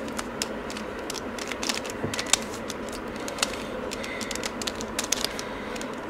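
Mirror cube (a shape-shifting 3x3 puzzle cube) being turned by hand: irregular plastic clicks and clacks as its layers rotate and snap into place, over a steady hiss.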